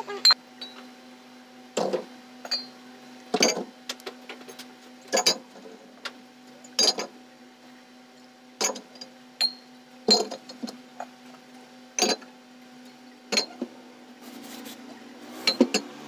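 Soda bottles being set down one at a time on a refrigerator's wire shelf: a sharp knock about every one and a half to two seconds, about ten in all, over a steady low hum.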